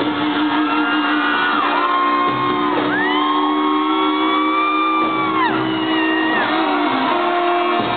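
Live rock band playing loud. Over it come long held notes that swoop up at the start and fall away at the end, three in a row, the longest held for over two seconds.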